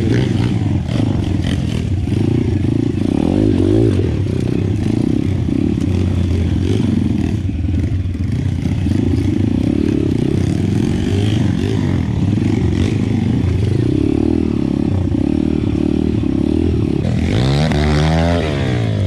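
Pitgang 140 XD pitbike's small single-cylinder four-stroke engine running under load as the bike is ridden, its revs rising and falling again and again. Near the end comes a sharper rev that climbs and drops back.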